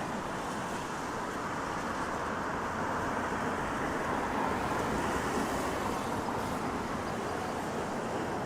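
Steady hiss of car tyres on a rain-wet street, swelling a little as traffic passes partway through.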